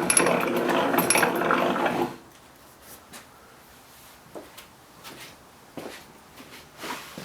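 Hand-cranked Champion Blower & Forge No. 101 cast-iron post drill running, its gears whirring and rattling with regular clicks. It stops about two seconds in, and after that there are only a few faint knocks.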